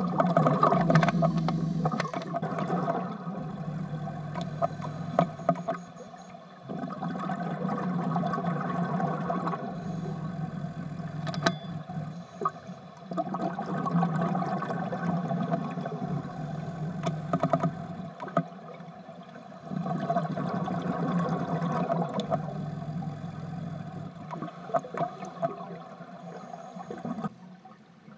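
Scuba breathing heard underwater: the regulator's breaths and the exhaled bubbles gurgling, swelling and fading in cycles of about three seconds.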